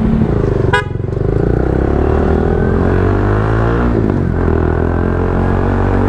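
A brief toot from a Halo dual snail horn about a second in. Then a Rouser NS160's single-cylinder engine pulls away on the road, its pitch rising steadily for a few seconds and then levelling off.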